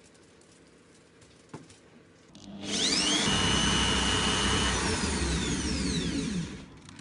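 A small electric motor, such as a power tool or kitchen appliance, starting up with a rising whine, running loudly for about four seconds, then switched off and winding down with a falling whine.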